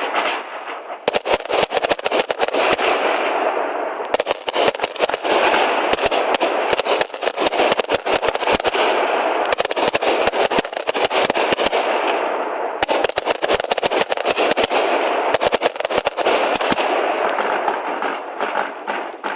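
Fireworks display: rapid strings of sharp bangs and dense crackling from salvos of aerial shells, coming in waves that build up and thin out several times.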